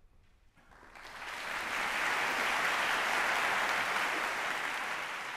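Concert audience applauding, starting about half a second in and quickly building to full strength.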